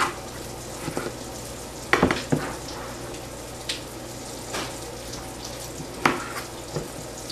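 Veggie chicken nuggets frying in oil in a pan, a steady sizzle. Over it come several sharp knocks of a kitchen knife on a plastic cutting board as a cucumber is peeled and sliced, the loudest about two and six seconds in.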